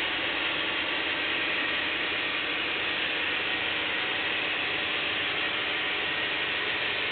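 HO scale model freight cars rolling across a model steel truss bridge: a steady, dense mechanical clatter of many small wheels on the track.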